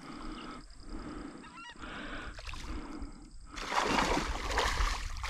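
Water splashing at the edge of a shallow lagoon, starting a little past halfway and loudest near the end. Before that a few short bird calls sound faintly.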